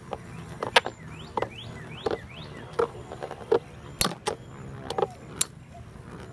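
Two metal Beyblade tops, Galaxy Pegasus W105R2F and Sol Blaze V145AS, spinning in a plastic stadium and hitting each other with sharp clacks, about one or two a second, over a faint steady whir.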